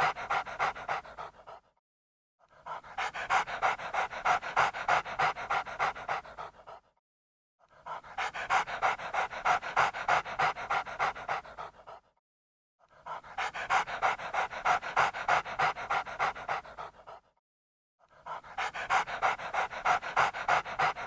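Dog panting rapidly, about three quick breaths a second, in bouts of four to five seconds broken by short silent pauses.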